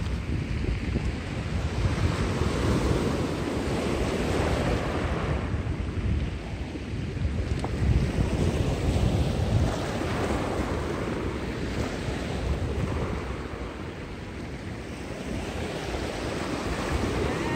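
Sea surf breaking and washing up a pebble shore, swelling and easing every few seconds, with wind rumbling on the microphone.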